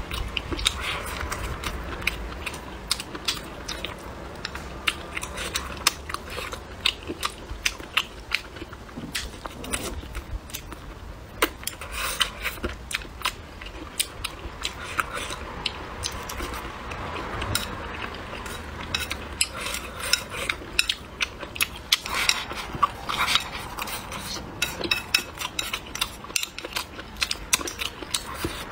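Close-miked eating: chewing with many quick, sharp crunches and clicks, and chopsticks tapping a bowl, as mouthfuls of rice, braised meat and peppers are eaten.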